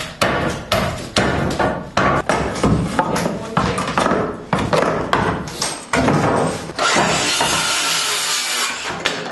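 Hammer blows on wood during hand demolition, a quick run of sharp knocks about two or three a second. Near the end the knocks give way to a few seconds of steady rushing noise.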